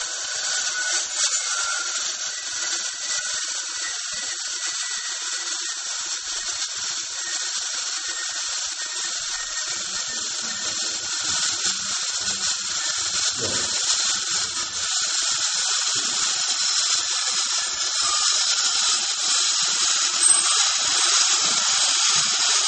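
Liquid nitrogen being transferred by hose from a pressurised dewar into a telescope's cooled-detector dewar: a steady high hiss of cold nitrogen gas boiling off and escaping as the warm vessel fills, slowly getting louder.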